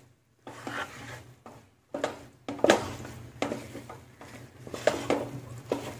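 Wooden spatula stirring and scraping through cooked rice in a large pot, in irregular strokes roughly a second apart, as the boiled rice is mixed into the vegetables for fried rice. A faint steady low hum runs underneath.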